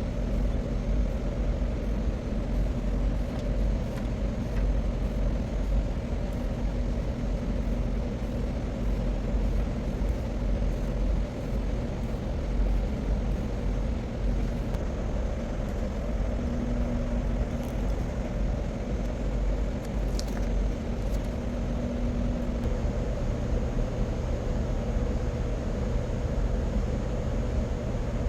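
Steady low rumble and hum of heavy machinery running continuously, with no change in level.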